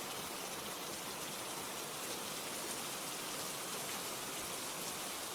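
Steady rainfall, an even hiss of rain falling on a surface.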